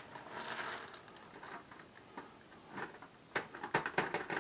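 Tater tots being pressed and shuffled by hand into a foil baking pan: faint rustling, then a quick cluster of small clicks and foil crinkles near the end.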